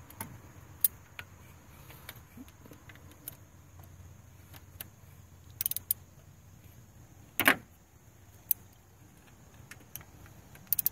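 Metal wrench clicking and clinking against bolts and engine parts as new water pump bolts are turned in a few turns at a time by hand. The clicks are scattered and irregular, with a loud single click about seven seconds in and small clusters near the six-second mark and near the end.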